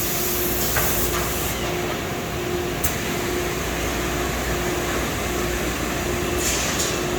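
Sturtz vertical welder running: a steady machine noise with a hum that pulses on and off about once a second, and bursts of air hiss near the start and again near the end. One sharp click comes about three seconds in.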